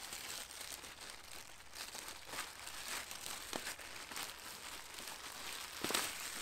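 Clear plastic bag crinkling and rustling as it is pulled off a sandbag, with scattered sharper crackles, the loudest near the end.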